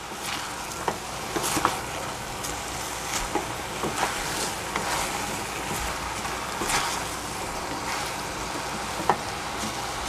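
Chopped eggplant and minced pork sizzling in a stainless steel saucepan while a wooden spatula stirs them, with scattered scrapes and knocks of the spatula against the pan over a steady frying hiss.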